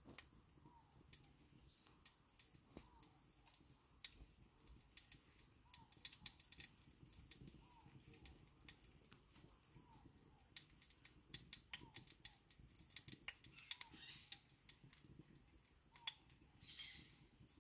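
Near silence with faint scattered crackles and ticks from oil and onion starting to warm in a clay cazuela over a wood fire. A faint short falling chirp repeats every one to two seconds.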